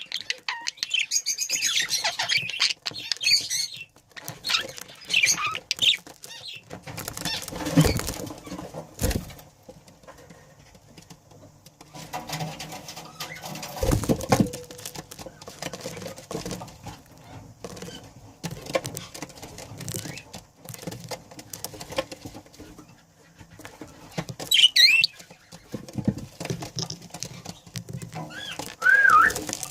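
Budgerigars giving short chirps now and then, with a few bursts of wing fluttering.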